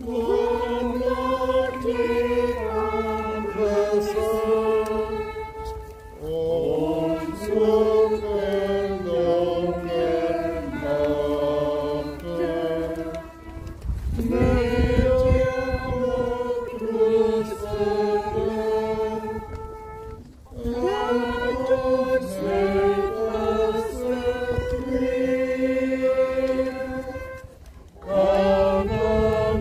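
A congregation singing a hymn together in slow phrases of long-held notes, with a short pause between lines about every seven seconds.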